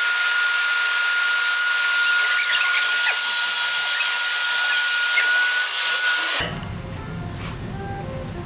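A small electric motor running with a steady hissing whir and a steady high whine, cutting off suddenly about six and a half seconds in; quieter music follows.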